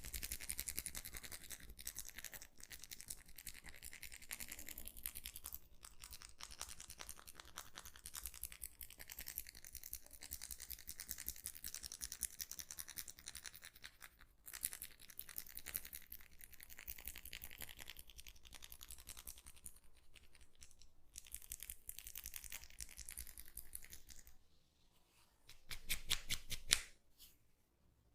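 Hands massaging close to the microphone: fast, continuous scratching and rubbing, with a short pause about three-quarters of the way through and a louder flurry right after it.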